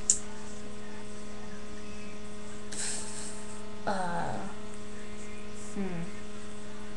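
Steady electrical hum in a low-quality webcam recording, with a sharp click just after the start, a brief hiss about three seconds in, and a short falling voice sound about four seconds in.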